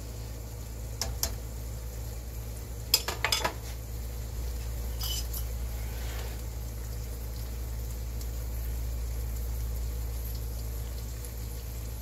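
A metal utensil clinking against a pot a few times, loudest in a quick cluster about three seconds in, over a steady low hum.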